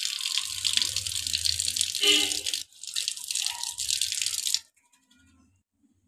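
Water gushing from an outdoor wall tap and splashing, in two spells of about two and a half and two seconds with a short break between, and a brief throaty gurgle about two seconds in.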